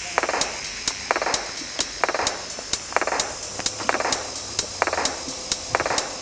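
Background music with a steady beat: a snare-like hit about once a second and quick hi-hat-like ticks between.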